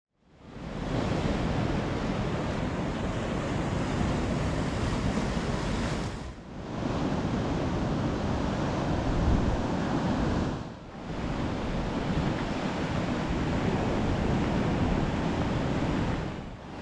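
Sea surf washing and breaking on the shore, mixed with gusty wind buffeting the microphone. The noise drops away briefly twice, about six and eleven seconds in.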